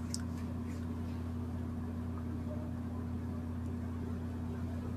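Steady low hum of room tone, with a faint click just at the start.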